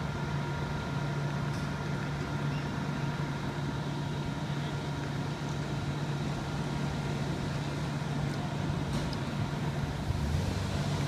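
Fire engine's diesel engine idling with a steady low drone. A car drives past near the end, adding a lower rumble.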